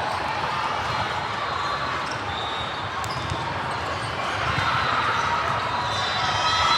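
Volleyball gym ambience: balls bouncing and being hit in a large echoing hall over a steady crowd murmur.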